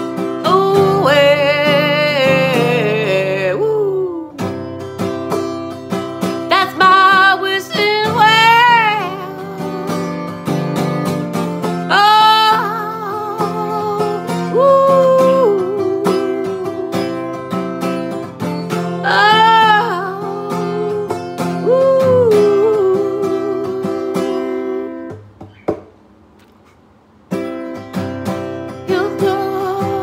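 A woman singing with heavy vibrato over acoustic guitar accompaniment. The music drops out for about two seconds near the end, then starts again.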